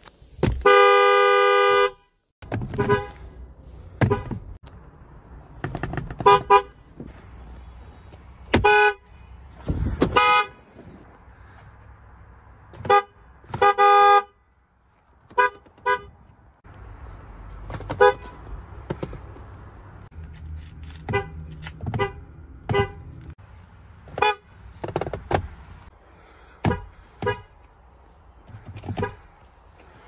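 Ram pickup truck horns honked again and again: one long blast near the start, then a run of short toots and a couple of longer blasts midway.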